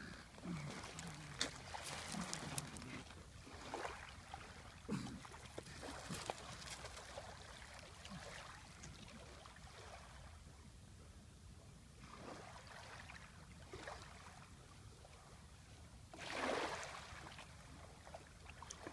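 A pug's short low grunts and snuffles, mostly in the first five seconds, among scattered scratching and clicking, with one louder noisy huff about sixteen seconds in.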